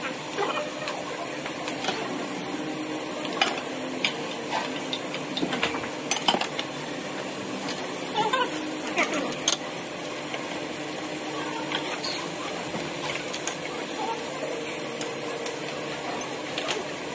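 Dishes and cutlery clinking and scraping during a meal, in scattered short knocks over a steady sizzling hiss.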